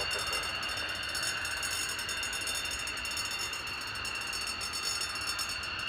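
F-16 fighter's Pratt & Whitney F100 turbofan at taxi power: a steady high-pitched whine over an even rush of jet noise.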